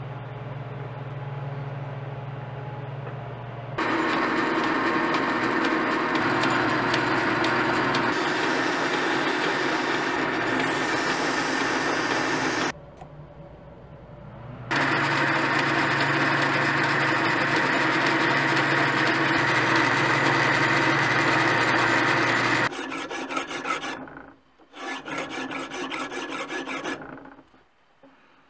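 Metal lathe running with a low hum, joined about four seconds in by a loud, even rubbing of a hand tool against the spinning steel rod. The rubbing breaks off for a couple of seconds in the middle, then resumes and ends in a few shorter, choppy strokes.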